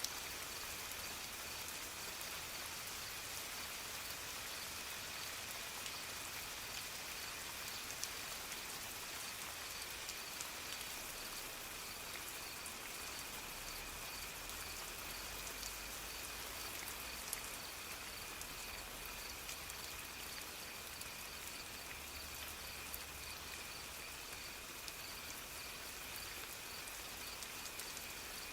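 Soft, steady rain falling, with occasional single louder drips. A faint, steady high-pitched trill runs underneath.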